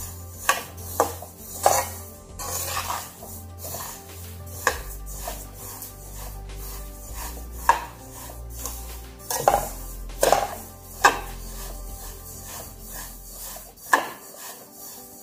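Slotted metal spatula scraping and knocking against a metal kadhai as it turns dry sesame seeds roasting over a low flame. The strokes are irregular and sharp, a few clustered about a second in and again around ten seconds in. Quiet background music with low held notes runs underneath.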